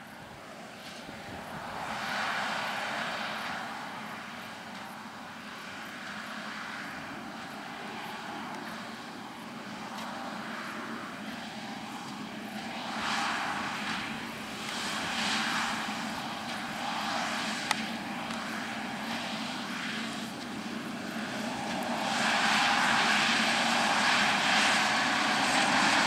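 John Deere 6175R tractor's diesel engine running under load as it pulls a Krone Swadro rotary rake rowing up straw. The drone swells and fades, and is loudest near the end as the tractor comes close. There is a single sharp click about 18 seconds in.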